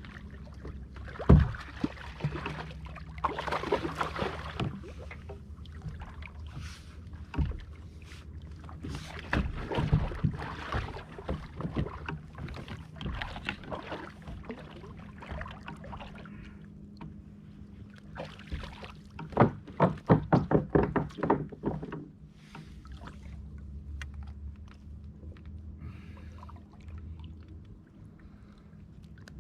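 Knocks and thumps on a kayak as a kahawai is brought aboard and handled, with a quick run of loud thuds about twenty seconds in, over a steady low hum.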